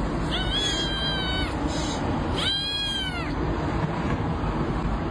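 A cat meowing twice, each meow long and drawn out, over a steady background noise.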